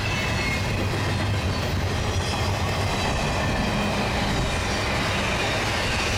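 Double-stack intermodal container train rolling past: a steady rumble of the well cars' wheels on the rails.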